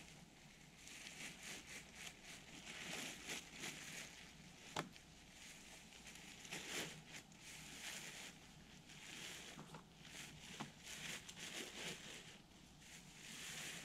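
Faint, irregular rustling of a nylon camping hammock and its tarp as a person climbs in and settles into it, with a sharp click about five seconds in.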